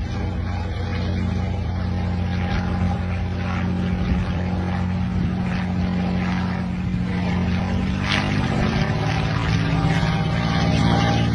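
A steady low engine drone with a hum of several tones, shifting slightly in pitch about eight seconds in.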